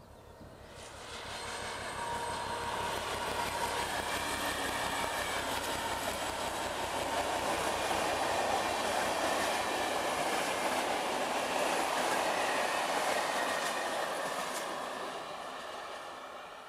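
ČD class 749 diesel locomotive 749.253 hauling a passenger train past, its engine and the wheels on the rails heard together. The sound builds about a second in, is loudest in the middle as the coaches go by, and fades near the end.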